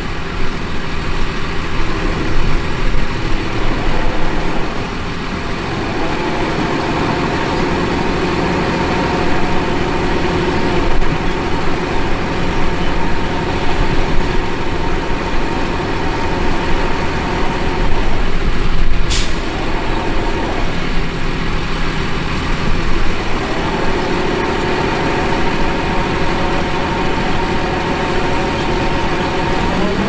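Diesel engine of a Vredo VT4556 self-propelled carrier running steadily while its raised bunker tips chicory roots into a lorry trailer, the roots rumbling as they fall. A single sharp click about two-thirds of the way through.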